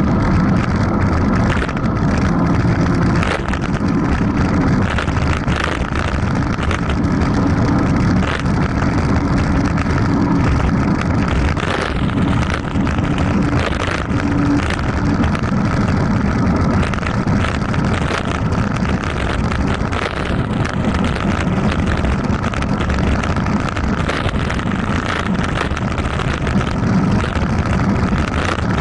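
Wind buffeting the action camera's microphone and tyres rumbling over a dirt road during a fast mountain-bike descent at about 40 to 50 km/h, with frequent knocks and rattles over bumps.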